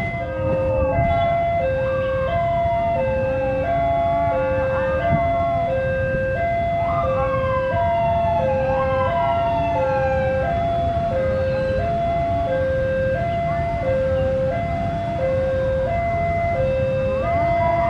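Railway level-crossing warning alarm sounding a steady hi-lo two-tone signal, its pitch swapping about every two-thirds of a second. Underneath are the low rumble of a KAI diesel locomotive hauling a passenger train slowly into the station and several metallic squeals sliding down in pitch.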